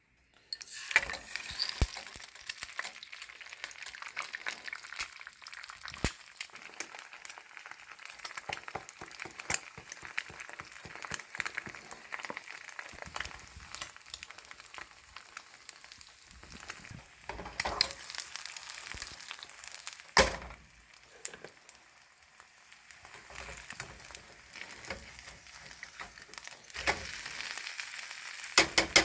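Food frying in a pan: a steady sizzle full of small pops and crackles, with a few louder single knocks along the way.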